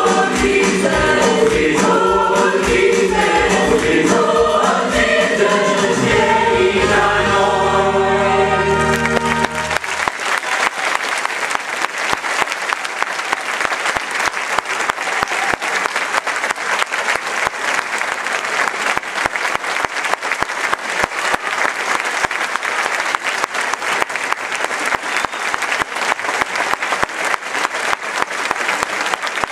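A stage cast sings in chorus over backing music and ends on a sustained final chord about nine seconds in. A theatre audience then breaks into steady applause that lasts through the rest.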